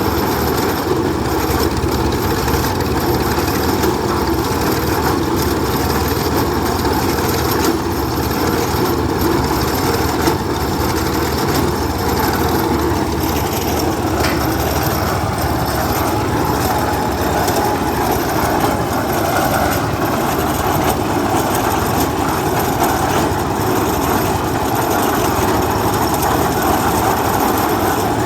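An engine running steadily at a constant, loud level.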